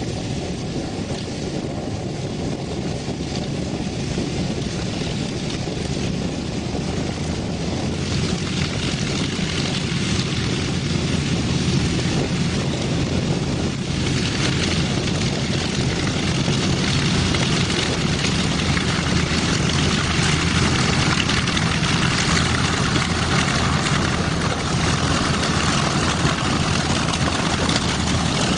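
Twin Wright R-2600 radial engines of a B-25 Mitchell bomber running at low power while it taxis, growing louder about halfway through.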